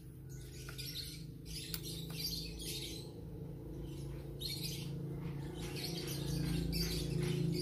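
Birds chirping over and over in short, high calls, above a steady low hum that gets louder about six seconds in.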